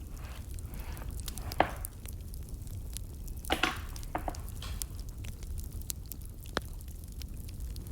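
Wood fire burning, with irregular crackles and sharp pops of the burning logs over a low steady rumble; the loudest pops come about a second and a half in and in a quick cluster a little before the middle.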